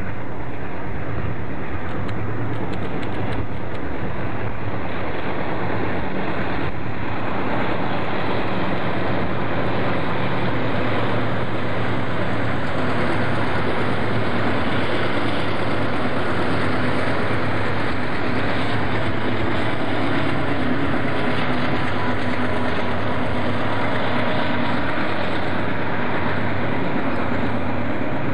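Several diesel-electric freight locomotives working together run steadily past at close range, hauling a double-stack container train, with wind on the microphone.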